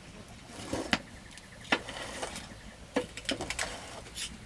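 A handful of sharp knocks and clicks, roughly a second apart, from a wooden-handled tool being handled at a pot on a wood fire.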